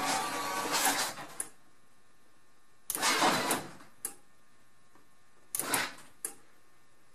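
Genie Stealth 750 belt-drive garage door opener's motor running, cutting off about a second in, then jogged in two short runs, each followed by a sharp click. The down button is being held and released to inch the door to its fully closed travel limit while programming the opener.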